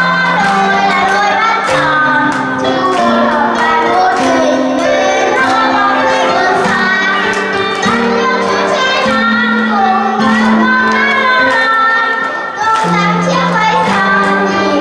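A child singing into a microphone over backing music with a steady bass line.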